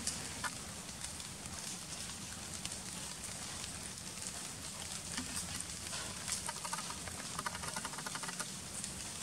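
Rustling and crackling of undergrowth and dry leaf litter as monkeys move and forage, with many small scattered clicks. A brief run of rapid pulsing comes about three-quarters of the way through.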